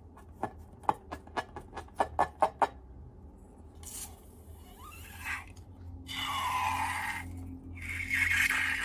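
Close-up slime-and-balloon handling sounds: a quick run of about a dozen sharp clicks, then hissing and scraping from about halfway in.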